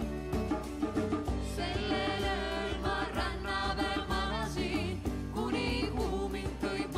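A song: acoustic guitar strumming with women's voices singing, the voices coming in about a second and a half in.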